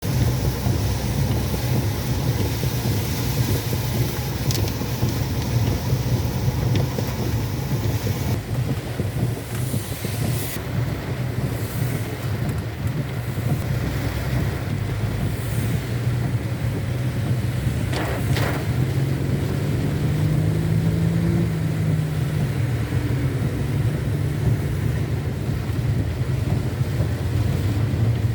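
A car in slow traffic in heavy rain, heard as a steady low rumble with a hiss of rain over it. The hiss is stronger in the first several seconds. A short sharp knock comes about two-thirds of the way through.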